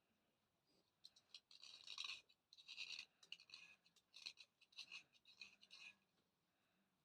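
Thick Chandni slate pencil being scraped dry: a run of six or seven short, faint, scratchy strokes starting about a second in and stopping about a second before the end.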